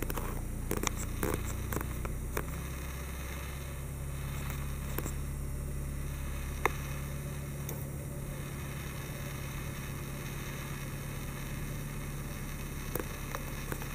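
Steady low hum inside a car's cabin, with a few light clicks and taps scattered through it, one sharper click about six and a half seconds in.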